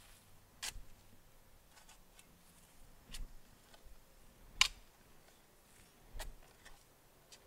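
Narrow spade cutting into soil while digging a planting hole: four separate sharp strikes a second or more apart, the third the loudest.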